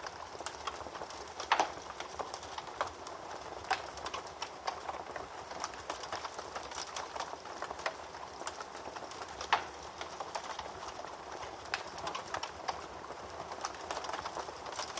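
Wood fire burning in a fireplace, crackling steadily with frequent sharp pops; the loudest pops come about a second and a half in and again about nine and a half seconds in.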